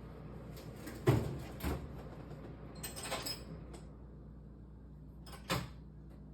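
Wheelchair parts being handled while it is taken apart: a few separate knocks and a short rattle. The loudest knock comes about a second in and another near the end.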